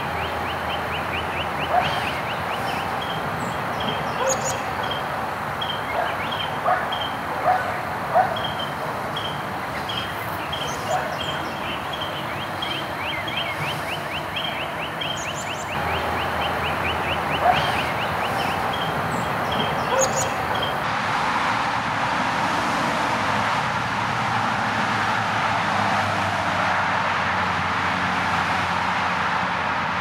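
Outdoor ambience: a steady hum like distant traffic, with a bird chirping short high notes a few times a second over the first two-thirds and a few louder calls.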